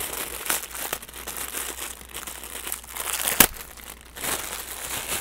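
Clear plastic accessory bag crinkling and rustling irregularly as it is handled and pulled open, with one sharp snap about three and a half seconds in.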